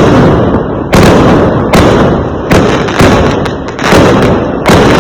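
Fireworks exploding in quick succession: about seven loud bangs, roughly one a second, each followed by a rumbling echo that dies away before the next.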